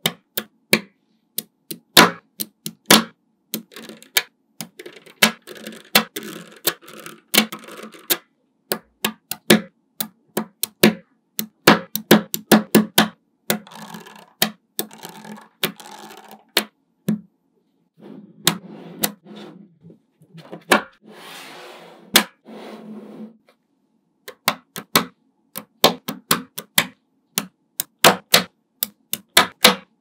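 Small magnetic balls clicking sharply and irregularly as they snap together one by one, with a few stretches of softer rattling between the clicks.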